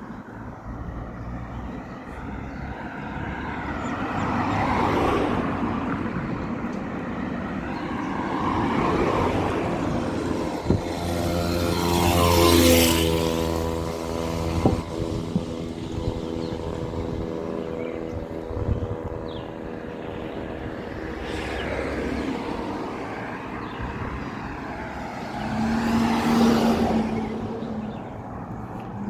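Several road vehicles passing one after another. The loudest goes by about twelve seconds in, its engine note dropping in pitch as it passes.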